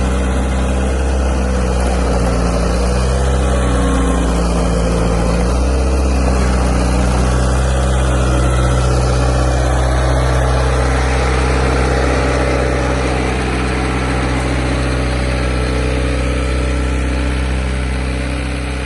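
1994 New Holland skid steer's engine running steadily, its pitch shifting slightly a few times.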